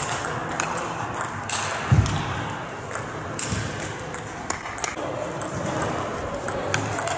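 Table tennis balls clicking off bats and tables, in an irregular run of sharp clicks from the rally and from other tables in the hall. There is a dull thud about two seconds in.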